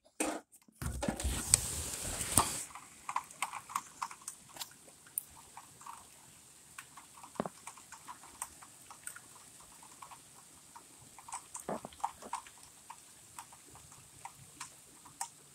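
Thunderstorm rain falling, a steady faint hiss with irregular drops tapping and knocking on a nearby surface, a few a second. A loud rush of noise lasts about two seconds near the start.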